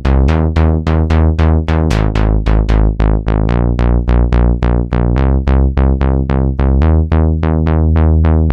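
Native Instruments Monark, a Reaktor emulation of a Minimoog-style monophonic analog synth, playing a bass line: fast repeated plucky notes, about four or five a second, each with a bright attack that quickly closes down. The bass note changes every two seconds or so.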